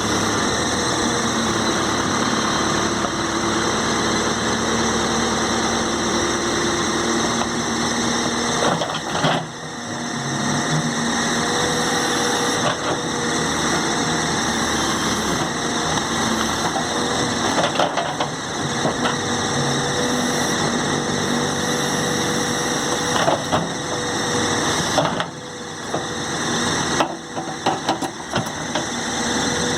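A two-axle 'toco' truck running steadily with a continuous drone, the growl ('ronco') that is being checked. A faint steady whine runs under it from about a third of the way in, and the level dips briefly a few times.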